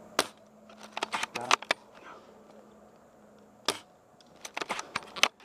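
Sharp clicks and knocks in several quick clusters: handling noise from a bolt-action airsoft sniper rifle and gear.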